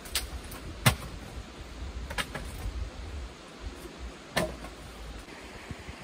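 Four sharp knocks or clicks, the loudest about a second in, over a low rumble that fades near the end.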